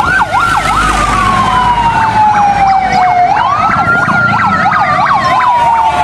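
Fire engine sirens sounding together: one slow wail that falls in pitch, rises again a little past halfway and falls once more, over a fast yelp repeating about three times a second.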